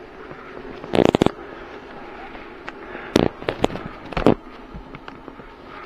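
Clusters of sharp clicks and knocks, about a second in, around three to three and a half seconds and just after four seconds, over a steady low room murmur: handling clatter as a bowl of noodles and a fork are carried.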